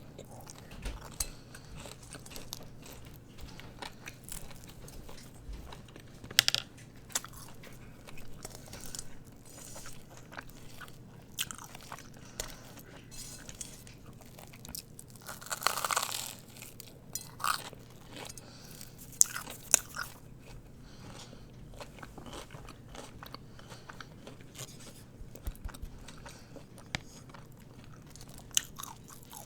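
Close-up eating sounds of a Korean mozzarella-filled corn dog: crisp crunches as the batter crust is bitten, then chewing, with the loudest crunch about halfway through.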